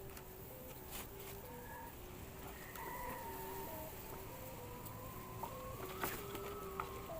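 Thai kite hummer (the bow-string 'oud' on a flying kite) droning in strong wind, its tone shifting between a few notes and a higher tone rising slowly in pitch over the second half. A few sharp ticks are heard.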